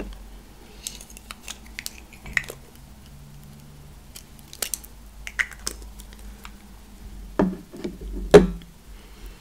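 Light plastic clicks and taps as a digital thermometer and its small case are handled, with two louder low thumps near the end.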